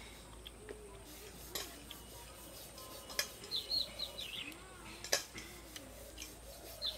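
A few sharp clicks from eating off a steel plate, and a small bird chirping a quick run of high calls about halfway through.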